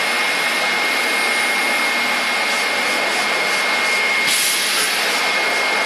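Powder packaging machine running: a steady rushing mechanical noise with a constant high whine, and a brief sharper hiss about four seconds in.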